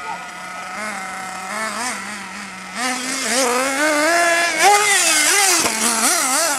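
Nitro glow engine of a Hobao Hyper 8.5 RC buggy running at a steady pitch, then revving up and down from about three seconds in. It grows louder as the buggy comes close.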